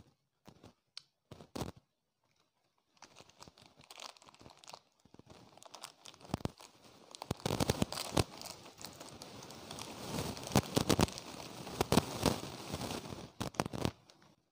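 Plastic snack wrapper being torn open and crinkled by hand, close to the microphone. A few light taps as packets are touched come first, then the crinkling starts about three seconds in, grows to dense crackling with sharp snaps and stops just before the end.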